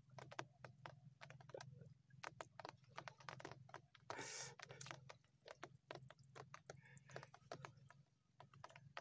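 Faint handling noise: soft, irregular clicks and rustles, with a brief louder rustle about four seconds in.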